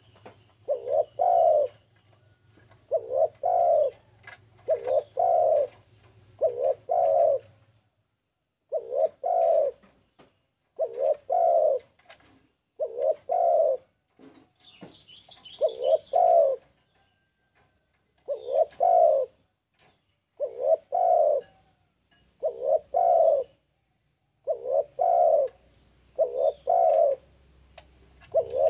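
Spotted dove cooing, a short phrase of two or three low coos repeated about every two seconds, with a longer pause near the middle.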